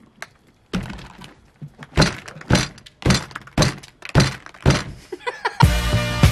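A run of about eight dull, hollow thunks from big pumpkins being knocked and handled on a table. Upbeat music with a steady beat comes in near the end.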